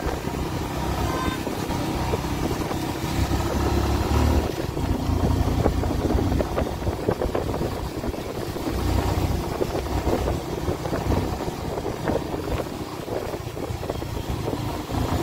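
Motorcycle riding on a wet road in heavy rain: the engine runs steadily under irregular wind buffeting on the microphone.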